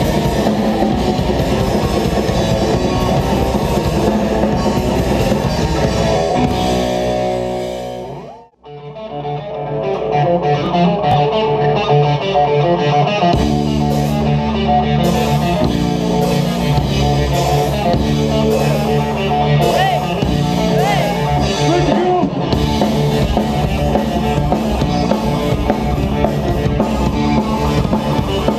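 Hardcore punk band playing live: distorted electric guitars, bass and drum kit. About eight seconds in the sound fades out almost to nothing for a moment, then the band comes back in at full loudness.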